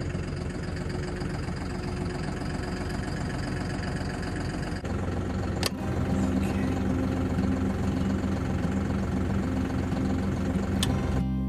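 Engine idling steadily. Its tone shifts about five seconds in, and a sharp click comes just after the shift and another near the end.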